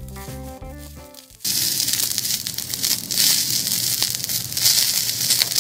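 Background music for about the first second and a half. It then cuts to sausages sizzling loudly on a small iron griddle, a steady hiss full of small crackling pops.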